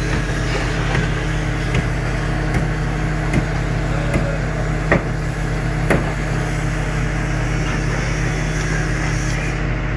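Heavy diesel construction machinery running with a steady, loud drone. Six sharp knocks come at fairly even spacing in the first six seconds.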